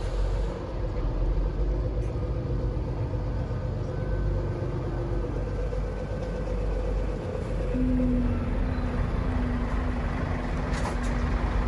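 Scania truck diesel engine idling: a steady low rumble, with a steady hum joining about eight seconds in.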